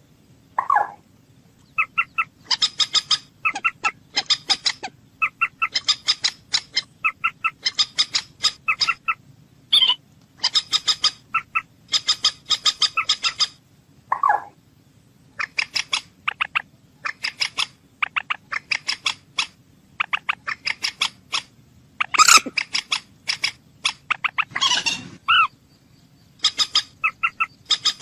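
Common moorhen calling: bursts of rapid, short clicking notes repeated over and over, broken by a few louder, lower single calls.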